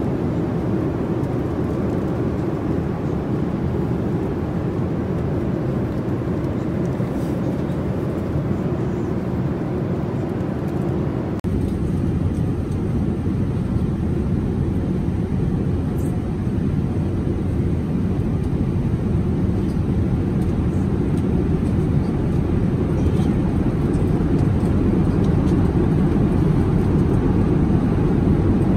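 Airliner cabin noise in flight: a steady low rumble and rush of engines and airflow heard from a passenger seat. It shifts slightly about a third of the way through and grows a little louder near the end.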